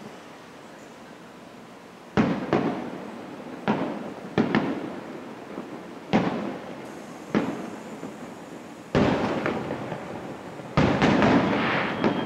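Aerial firework shells bursting: after about two seconds of low background noise, a run of about ten sharp booms, each trailing off in a rolling echo, coming thicker and overlapping near the end.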